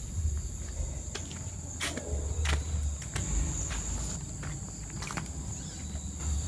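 Steady high-pitched insect chorus, with footsteps over dry leaves and low handling rumble from a handheld camera on the move. A few sharp clicks about two seconds in.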